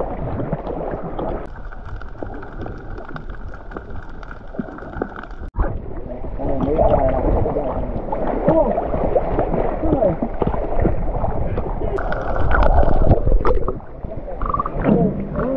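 Sea water sloshing and gurgling close to the microphone, with muffled voices in the middle of the stretch.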